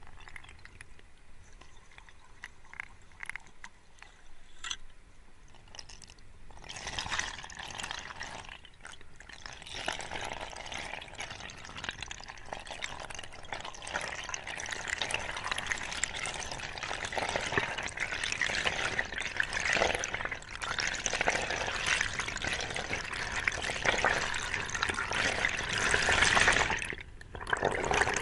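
Underwater rushing and bubbling of water past a diver's camera, starting a few seconds in and growing louder, with a brief dip near the end. A few faint clicks come before it.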